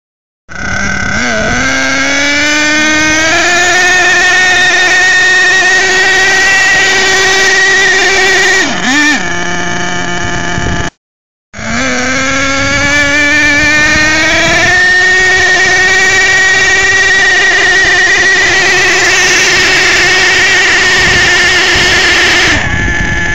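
Small nitro RC truck engine running at high revs under load during a pull. Its pitch climbs over a few seconds and then holds steady and high, with one short dip about nine seconds in. After a brief cut, a second run climbs and holds the same way.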